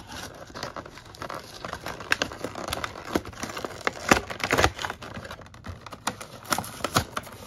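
An action figure's packaging being opened by hand: the clear plastic blister shell is worked out of its cardboard window box, with irregular plastic crackles, clicks and rustling. The loudest snaps come about four seconds in.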